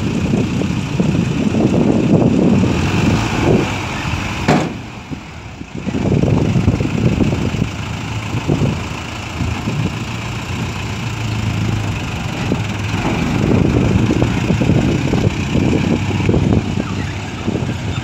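Six-wheel dump truck's diesel engine running, with a ragged low rumble that dips briefly about five seconds in, as the tipped bed comes down and the truck pulls away.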